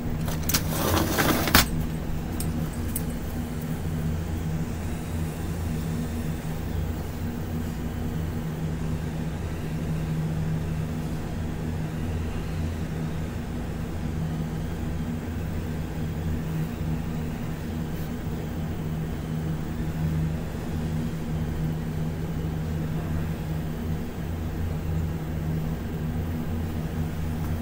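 A steady low mechanical hum with several fixed pitches, after a brief rattling clatter and thump about a second in.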